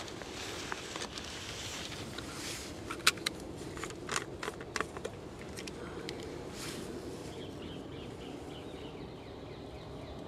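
Jetboil Flash gas stove burner running with a steady hiss, with a few sharp clicks and rustles about three to five seconds in.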